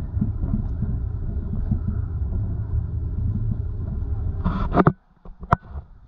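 Wind buffeting the microphone of a camera riding an open chairlift: an uneven low rumble that swells briefly near the end and then cuts off suddenly, followed by a few sharp clicks.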